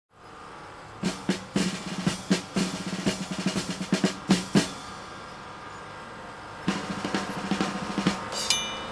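Drum-kit percussion: quick rolls of snare and bass drum hits in two runs, with a brief, bright chime near the end.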